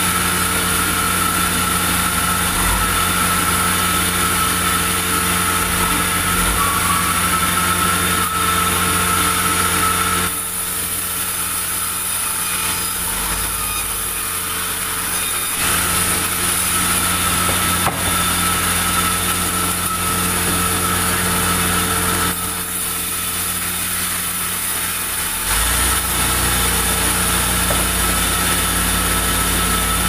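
Sawmill band saw running steadily while sawing a soft, light pulai log lengthwise, a steady hum with a high whine. It eases twice for a few seconds, then comes back at full level.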